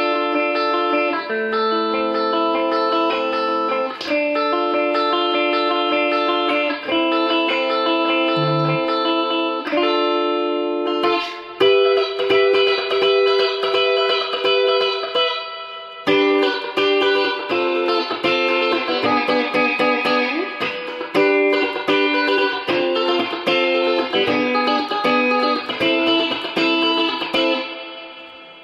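Fujigen J-Standard Mustang electric guitar played through an amp with both single-coil pickups on, giving a bright, jangly tone. Ringing chords for about the first ten seconds give way to busier picked notes, which fade out near the end.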